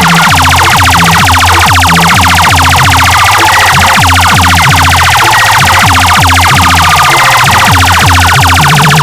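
Loud bass-heavy DJ dance track: a pounding low bass beat under a fast, continuously repeating siren-like falling sweep effect.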